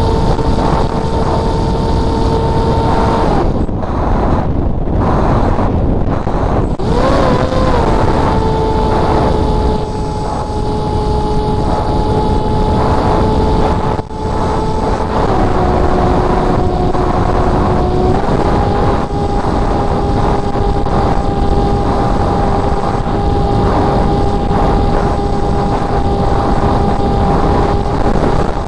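Onboard sound of a Spec Wing RC flying wing in flight: the motor and propeller whine steadily over heavy wind rush on the microphone. A few seconds in, the whine cuts out for several seconds and then comes back with a brief wobble in pitch. About halfway through it steps down in pitch for a few seconds, then rises a little again.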